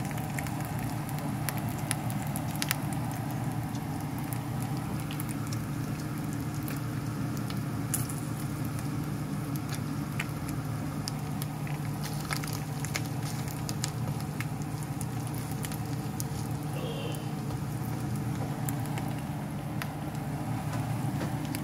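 Chicken pieces frying in a nonstick pan, the fat crackling with scattered small pops over a steady low hum.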